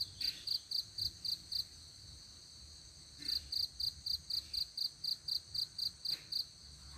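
Insects chirping: a high, rhythmic pulsing of about four chirps a second in runs of a few seconds with short pauses, over a steady high insect hum.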